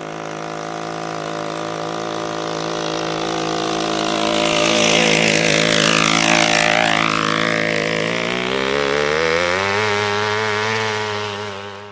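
Small two-stroke 53 cc chainsaw engine driving a homemade go-kart, running steadily and growing louder toward the middle. About nine seconds in it revs up to a higher pitch and holds there.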